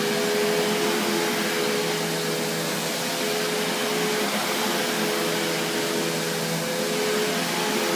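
Kenmore Whispertone upright vacuum cleaner with a 12-amp motor, running steadily at full speed with an even whine over a rushing of air.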